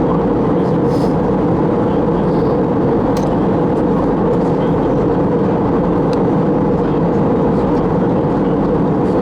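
Steady cabin noise inside an Airbus A321 on descent: an even, loud rush of engine and airflow drone, heaviest in the low-middle range with a hum near the middle. A few faint ticks sound over it.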